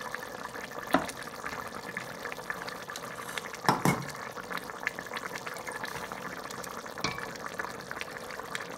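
Pot of meat broth boiling, a steady bubbling and crackling, as lumps of peanut paste are added. A few spoon knocks against the stainless steel pot come through it, the loudest a double knock about four seconds in.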